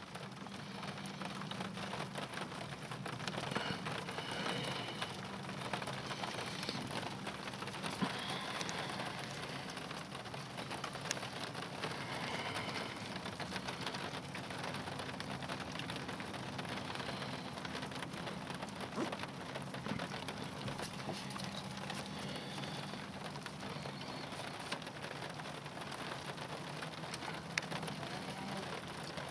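Steady patter of rain falling on wet snow and ice.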